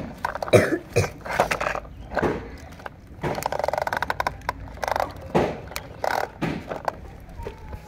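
Plastic toy motorcycle with gear wheels being handled and rolled on a concrete floor: clicks and knocks, with a quick run of rattling clicks from its gears a few seconds in.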